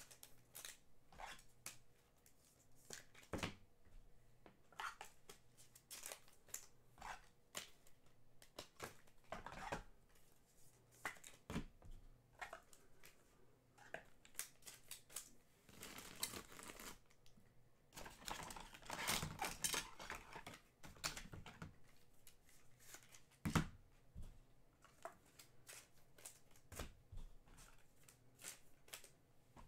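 Quiet handling of trading cards and their packaging on a table: scattered light clicks and taps, with two longer stretches of rustling and tearing a little past halfway, as of a pack wrapper being opened.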